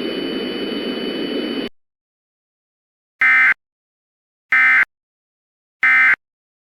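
Steady static hiss with faint steady high tones, cut off abruptly about one and a half seconds in; after a pause come three identical short bursts of EAS digital data, about a second and a quarter apart. These are the SAME end-of-message (EOM) data bursts, the chirping modem signal that closes an Emergency Alert System alert.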